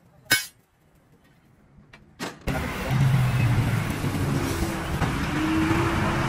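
Two short sharp bursts in near silence, then a vehicle engine running steadily, starting abruptly about two and a half seconds in.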